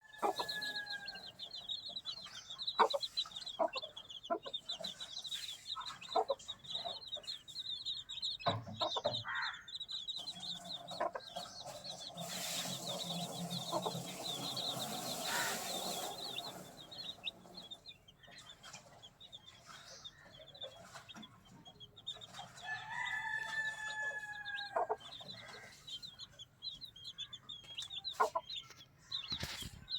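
Chicks peeping continuously in rapid, high cheeps, with scattered sharp taps. A longer, drawn-out chicken call comes about three-quarters of the way through.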